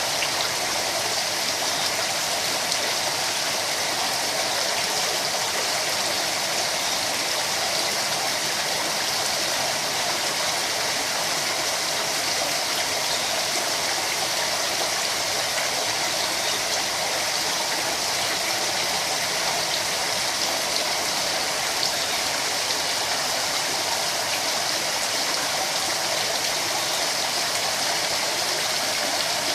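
Steady rush and splash of water running into a koi pond, even and unbroken throughout.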